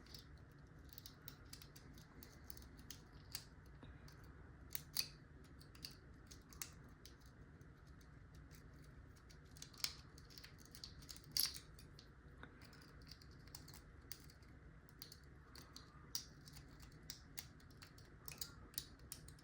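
Faint light metallic clicking and scratching of a tickler lock pick being worked in a padlock's keyway, with a few sharper clicks about five, ten and eleven seconds in.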